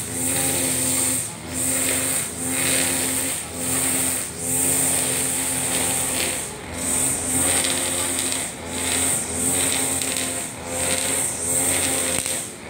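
Husqvarna 542RBS backpack brush cutter's two-stroke engine running at high speed, its 2.2 mm round nylon line whirring as it cuts grass. The sound swells and dips every second or two as the cutting head is swept from side to side.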